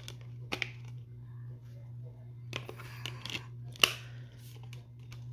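Handling noise from a metal steelbook case and its discs: a click about half a second in, a rustle around the middle and a sharper, louder click soon after, over a steady low hum.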